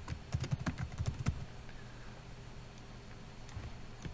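Computer keyboard typing: a quick run of keystrokes that stops about a second and a half in, with a single click near the end.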